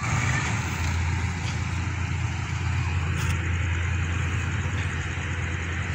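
Steady low drone of a diesel locomotive engine running, the SRT GE locomotive no. 4011 shunting coaches, with a constant hiss of noise above it.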